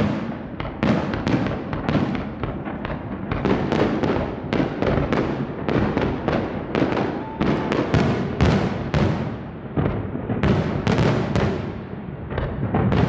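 Fireworks display: a dense, continuous barrage of shell bursts and crackling bangs, several a second, over a low rumble.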